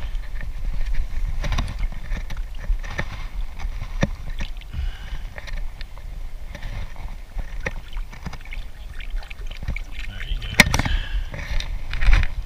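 Shallow lake water sloshing and splashing as a largemouth bass is held in it by hand and released, with small knocks and scuffs throughout and a sudden louder splash about ten and a half seconds in.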